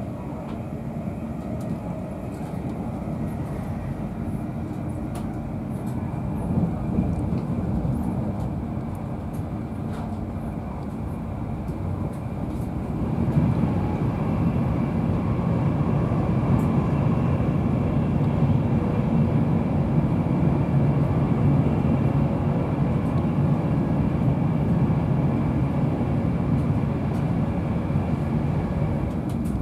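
Cabin noise inside an InterCity 225 Mk4 coach at speed: a steady rumble of wheels on rail and air past the body. About halfway through it grows louder and deeper as the train runs into a tunnel.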